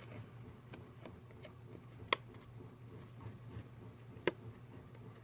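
Quiet handling of paper pieces and craft supplies on a desk: faint rustles and small ticks, with two sharp taps about two seconds apart, the first the louder, over a low steady hum.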